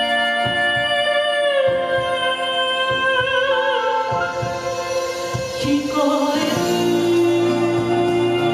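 A woman singing into a microphone through a PA speaker, holding long notes with vibrato over musical accompaniment; a lower sustained note comes in under her voice about six seconds in.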